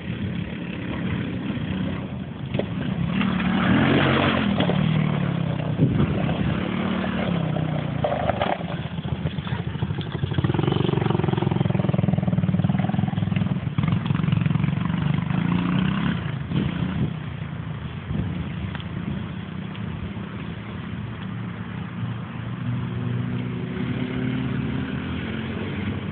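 Small single-cylinder engine of a YMC 110cc ATV running as the quad is ridden about, its pitch rising and falling with the throttle. It is loudest about four seconds in and again from about ten to fourteen seconds in, as the quad comes close.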